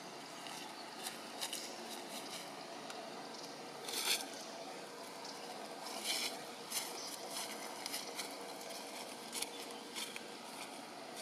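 Dry leaf litter rustling and crackling as a macaque moves about on it, in short scattered crackles with louder rustles about four and six seconds in, over a steady outdoor background hiss.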